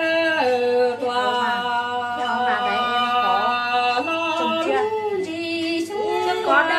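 A woman singing Hmong kwv txhiaj (traditional sung poetry), holding long notes that step up and down in pitch, with wavering ornaments partway through.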